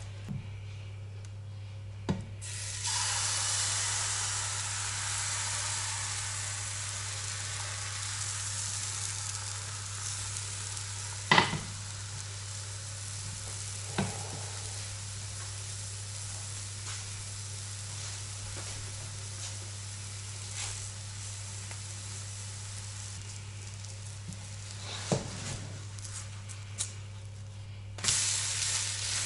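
Liver-pancake batter sizzling in a hot frying pan: the sizzle starts about two and a half seconds in, after the batter is ladled in, and slowly fades as it cooks. A few knocks of a utensil against the pan, and a louder sizzle near the end as the pancake is turned over with a spatula. A low steady hum runs underneath.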